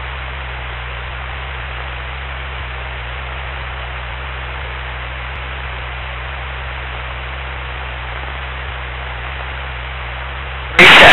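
Steady hiss over a low, even engine drone inside a Cessna 172 cabin in cruising flight. A sudden, very loud, distorted burst cuts in at the very end.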